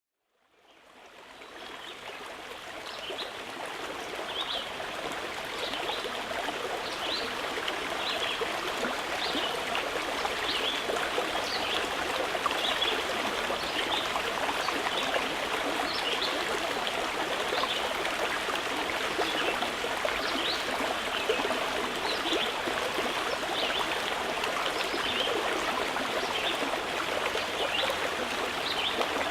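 Running water, like a small stream, flowing steadily with light trickling and bubbling. It fades in over the first few seconds.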